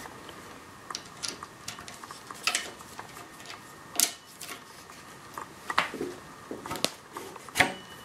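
Scattered clicks and light knocks of a hex key and bolt being worked loose from a plastic clamp collar on a bike repair stand's metal tube, with the collar being pulled off the tube; the sharpest knocks come about 4 s and 7.5 s in.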